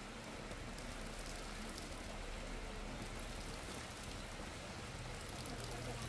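Steady light rain hissing and pattering, with no distinct events, over a faint low hum.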